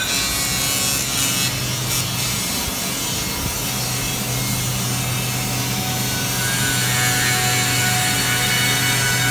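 Arc welding on a bolt truss in a welding jig: a steady hiss and crackle from the arc over a low electrical hum, the hum dropping out for about a second between two and four seconds in.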